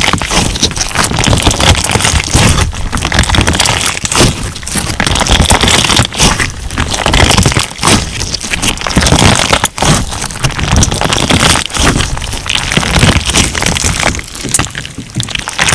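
Crunch slime being squeezed and pressed by hand, giving a dense, continuous run of crackles and pops that swells and eases every second or two as the slime is worked.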